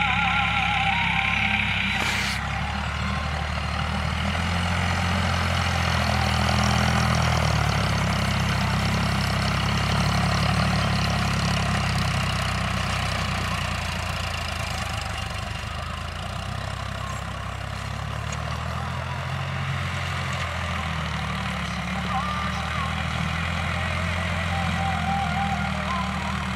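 Sonalika diesel tractor engine running steadily under load while pulling a rotavator (rotary tiller) through the soil.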